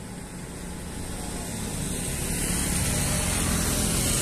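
Several motorcycles approaching and passing on a wet road, their engines and the hiss of tyres on wet asphalt growing steadily louder.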